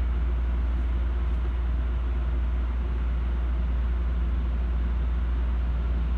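Steady low hum and rumble inside the cab of an Osaka Monorail train as it starts to pull away from a station.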